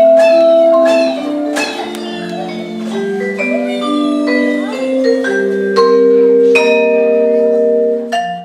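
Instrumental music of struck, ringing notes that overlap and hold, some for a second or more. It stops abruptly at the end.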